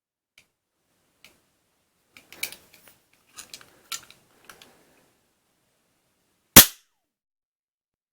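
Cap-gun revolver firing one loud, sharp cap shot about six and a half seconds in, preceded by a scatter of small clicks and rattles.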